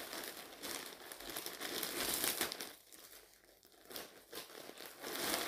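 Plastic packaging crinkling and rustling as a courier mailer bag is pulled open and handled. It goes quiet for about a second a little after the middle, then picks up again.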